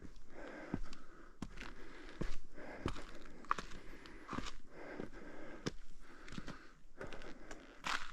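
Footsteps of a hiker walking up a trail, crunching evenly at about one and a half steps a second.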